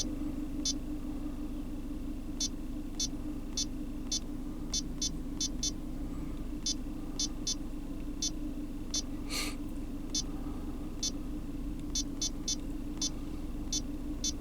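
Chevrolet Cruze engine idling steadily with a low hum, relearning its idle and fuel trims after the adaptations were reset. Short irregular high clicks run over it, and there is one brief hiss about nine seconds in.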